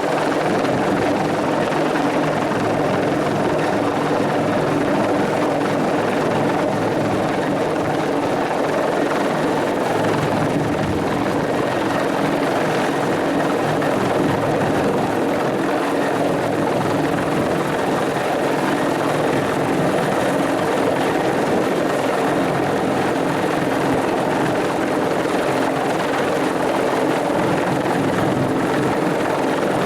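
Bell 412 helicopter running steadily, the rotor and twin turboshaft engines giving an even, unbroken drone.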